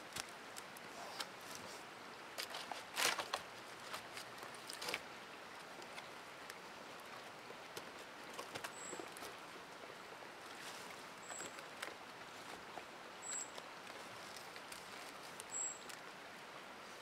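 Dry sticks knocking and scraping against each other and dead leaves rustling as wall sticks are handled and set upright in a log shelter, with a cluster of louder wooden knocks about three seconds in. A few short, very high peeps come in the second half.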